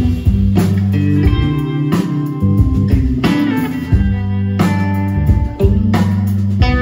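Live blues band playing: electric guitars over bass guitar and drums.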